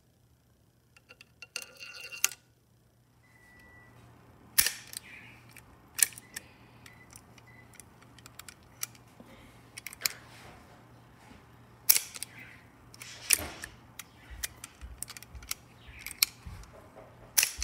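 Sharp metallic clicks and clacks of a handmade Hotchkiss-style .22 LR bolt action worked by hand, the trigger snapping as it is dry-fired to feed rounds from the magazine one at a time. About six loud snaps come at irregular intervals a couple of seconds apart, with lighter handling clatter of steel parts between them.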